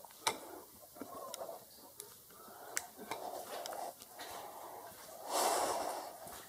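A person's heavy breathing close to the microphone, coming in swells every second or so, the loudest about five seconds in, with scattered sharp clicks of footsteps as he walks.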